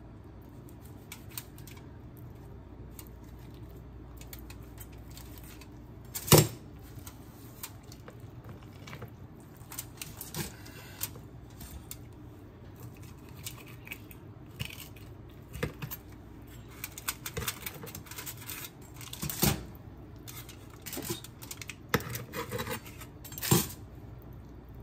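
Knife and fork clicking and scraping against a foil-lined metal baking sheet while a roast chicken is carved, with scattered sharp taps, the loudest about six seconds in and two more near the end.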